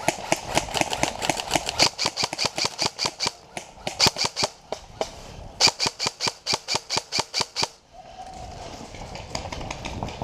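Airsoft electric rifle (G&G CM16 SRL AEG) firing rapid strings of shots, about eight a second, in three bursts with short pauses, stopping about eight seconds in.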